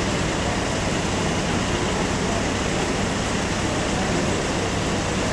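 Steady running noise of an idling car engine in an echoing underground parking garage, with no distinct knocks or changes.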